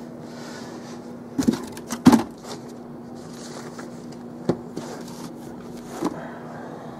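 Books being handled and set down: a few soft knocks and thumps, the loudest about two seconds in, with light paper rustling between them, over a steady low hum.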